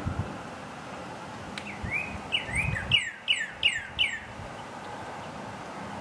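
Northern cardinal singing one phrase of clear slurred whistles: a couple of rising notes, then about four quick falling ones, lasting about two seconds. It is the male's spring song for attracting a mate.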